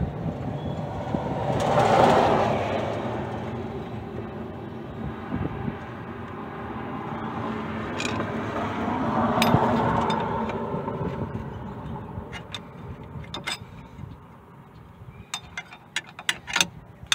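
Two vehicles passing by, each a swell of road noise that rises and fades over a few seconds, the first peaking about two seconds in and the second around ten seconds. Near the end come a series of light metallic clicks from a tool working the drum-brake springs and shoes.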